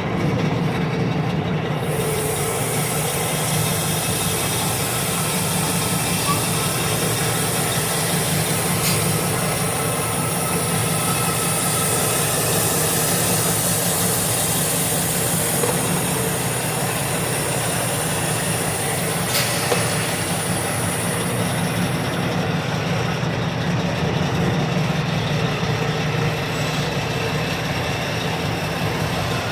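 Truck engine running steadily with a constant low hum. A high hiss lies over it for most of the stretch and drops away about three quarters of the way through.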